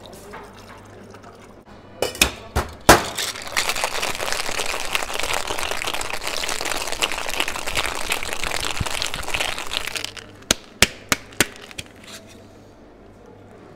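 Ice cubes rattling hard and without a break for about seven seconds, with a few sharp clinks against glass just before and after.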